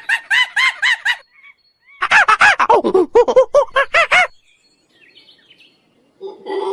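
Waterfowl calling: a quick run of about eight short, arched calls, a brief pause, then a longer, louder run of calls that slide lower in pitch and stop about four seconds in.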